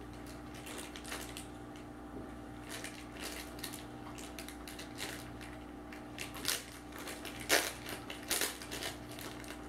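Crinkling and crackling of plastic packaging as fingers pick at and peel the wrapping on a small eye gel container, with a few louder crackles in the last few seconds.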